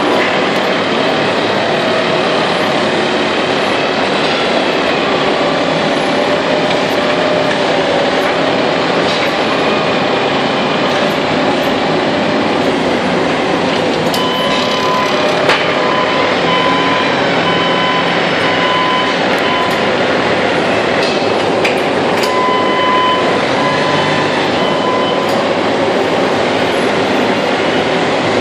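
Loud, steady din of industrial machinery in a metal-ingot production plant, with scattered clicks and knocks. In the middle stretch a short high beep repeats at even intervals.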